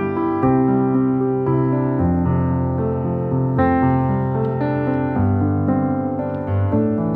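Background piano music: a melody over held chords.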